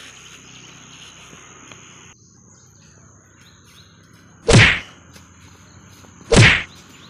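Two loud whack-like hit sounds, about two seconds apart, timed to a punch and a flying kick in a staged fight, over a background of birds chirping and a thin steady insect drone.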